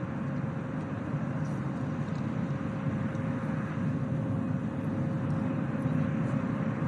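Jet aircraft noise at an airfield: a steady rumble with a faint, even high whine running through it.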